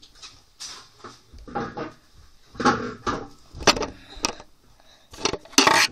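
A series of knocks and clattering from objects being handled close to the microphone, growing louder, with the loudest rubbing knocks in the last second.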